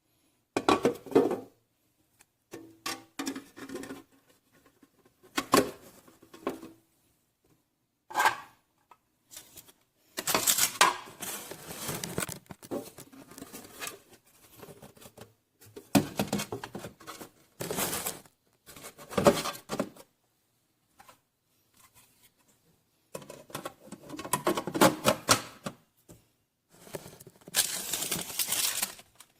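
Irregular rustling, scraping and knocking of objects being handled, in short bursts with brief quiet gaps between them.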